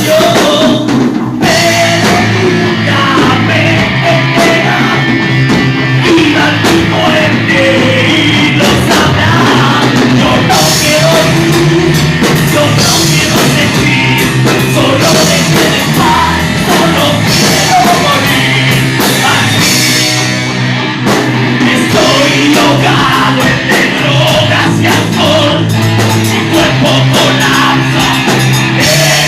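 Rock band playing live: drum kit, guitars and bass driving steadily under a sung lead vocal.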